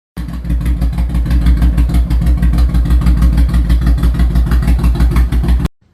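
Honda VTX 1800's big V-twin motorcycle engine idling with a steady pulsing beat, cutting off suddenly near the end.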